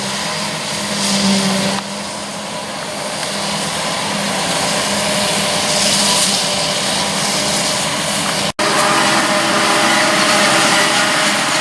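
Maize harvesting machinery working: the steady engine drone of a forage harvester and tractors, with an even hum and a hiss of noise over it. It breaks off for an instant about eight and a half seconds in, then carries on.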